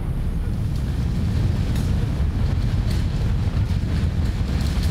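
Deep earthquake rumble that swells about a second in, with rattling clicks coming in about two seconds in and growing denser.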